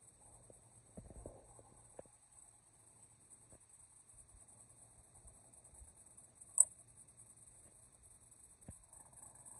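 Faint outdoor ambience: a steady high-pitched hiss with a low hum, broken by a few light clicks and one sharper click about two-thirds of the way in.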